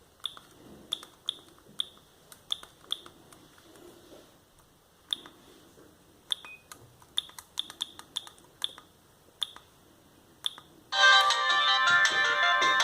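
Siemens M55 mobile phone: irregular keypad presses, each a sharp click with a short high beep, as its menu is stepped through. About 11 seconds in, one of its original ringtones starts playing loudly.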